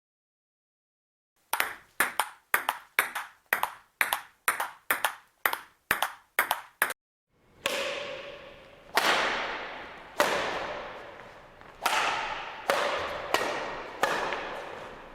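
Ball-sport impact sound effects: a quick run of short, sharp clicks about two a second, then a slower series of louder hits about a second apart, each ringing out with a pitched ring.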